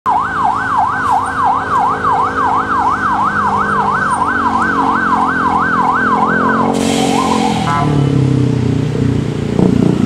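Police van's siren in a fast yelp, rising and falling about two and a half times a second, that cuts off suddenly about two-thirds of the way through. Heavy vehicle engines run underneath, and a deep engine note grows stronger near the end as the coach climbs.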